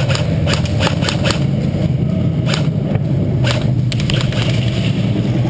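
A steady low rumble with about eight sharp clicks and taps scattered unevenly through the first four seconds, the clicks fitting airsoft gunfire, BB hits or footsteps.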